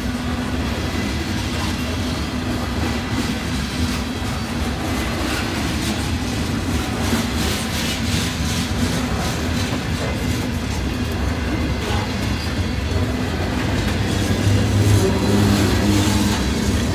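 Mixed freight train cars (gondolas, tank cars and covered hoppers) rolling past: a steady low rumble with repeated clacks of steel wheels over the rail joints, growing busier in the second half.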